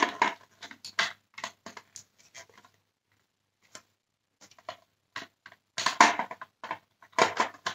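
Hard plastic parts of a Dyson cyclone assembly clicking and knocking together as they are handled and pressed into place, in irregular clusters of short clicks. There is a brief lull a little before halfway, and the loudest clicks come in the second half.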